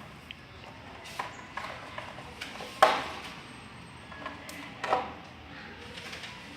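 Alexandrine parrot feeding on a lemon, making a handful of short, sharp clicks and knocks; the loudest comes about three seconds in and another about five seconds in.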